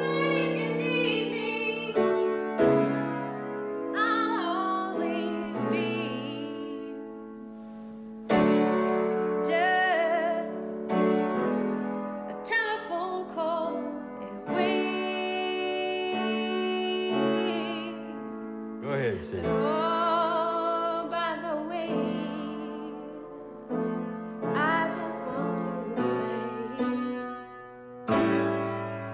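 A song's bridge: a woman sings a slow melody with vibrato over piano chords.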